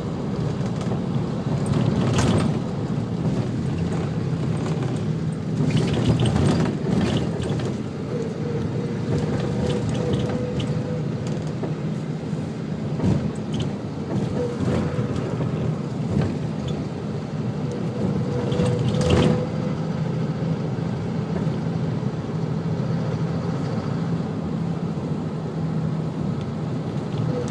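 A steady low engine hum with a faint steady whine above it, and a few sharp knocks along the way.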